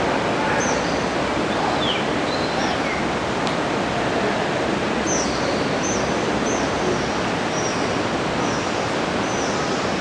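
Swallows giving short, high chirps over and over, more often in the second half, over a steady rush of flowing water in the gorge.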